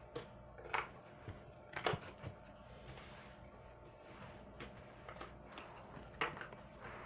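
Tarot cards being handled and shuffled at a table: a few soft, scattered clicks and taps of cards, over a faint steady hum.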